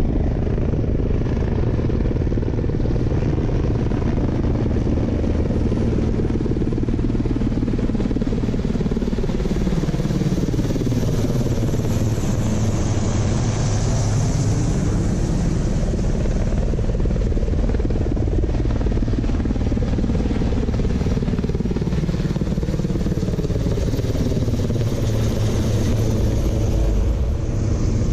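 Formation of helicopters, two Sikorsky VH-3D Sea Kings and two EC145s, flying past: steady rotor and turbine noise with a high turbine whine, its pitch sliding down and back up as the aircraft pass.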